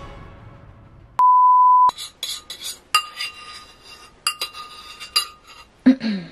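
A steady single-pitch beep lasting under a second, then a spoon clinking and scraping against a bowl in a run of quick ringing clinks, with a brief low falling sound near the end.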